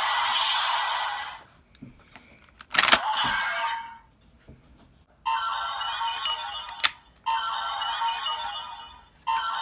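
Ultraman Z Z-Riser toy playing electronic sounds through its small speaker: a sound effect fades out about a second in, a sharp plastic click comes near three seconds, and from about five seconds a short electronic jingle loops roughly every two seconds, with single clicks between repeats.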